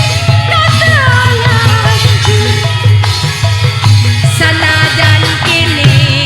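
Live band music, campursari style: a gliding melody line over a steady bass and a busy drum beat, with no sung words.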